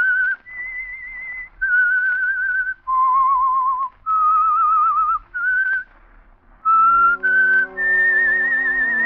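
A person whistling a radio drama's signature theme: a slow melody of single held notes, each with a wavering vibrato and separated by short breaks. About two thirds of the way in, an orchestra comes in with sustained chords under a long whistled note.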